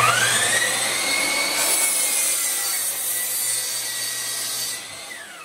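Electric miter saw starting up with a rising whine that levels off. Its blade then cuts through a pine board for a few seconds, and about five seconds in the motor winds down with a falling whine.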